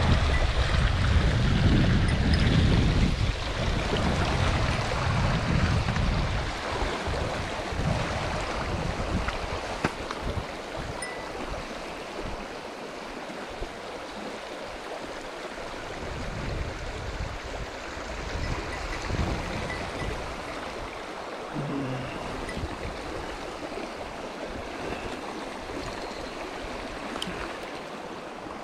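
Mountain stream water rushing steadily over rocks, with a gusty low rumble of wind on the microphone during the first six seconds or so.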